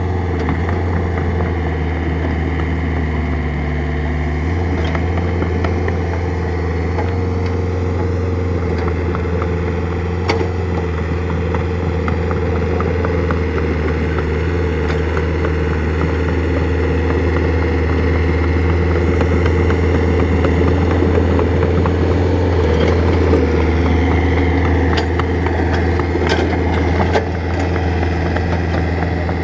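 Excavator engine running steadily, a little louder for a few seconds past the middle, with a few sharp knocks about ten seconds in and again near the end.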